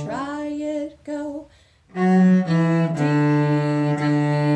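A cello bowed on the D string playing a short descending phrase: F-sharp, E, then a held D. Before it, about the first second holds a woman's voice briefly singing, then a short pause.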